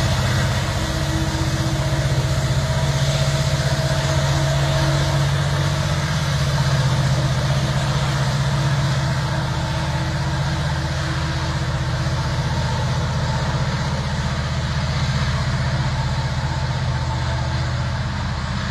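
Norfolk Southern freight train's diesel locomotives running steadily as the train moves away down the line, with the engine sound slowly easing off.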